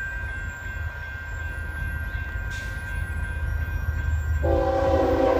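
Union Pacific 7972 diesel locomotive rumbling low and steady, then its horn sounds a chord of several notes about four and a half seconds in and holds to the end.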